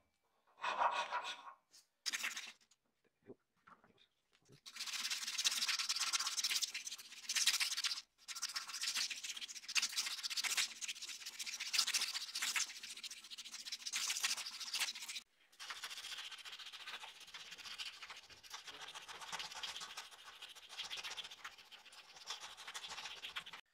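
A few short file strokes on a wooden knife handle, then a fast, continuous scrubbing as a strip of abrasive cloth is pulled back and forth around the wood. About two-thirds of the way through, this gives way to a quieter, steady rubbing of sandpaper on the handle.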